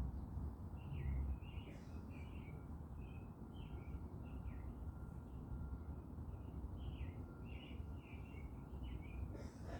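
Small garden birds chirping: a steady string of short, repeated chirps, over a low background rumble that is louder in the first second.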